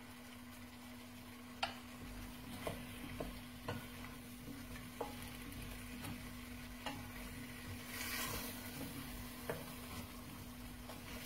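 Potatoes and pancetta being stirred in a pot, with a faint frying sizzle and sharp clicks of the utensil against the pot every second or so, and a louder rush of stirring about eight seconds in.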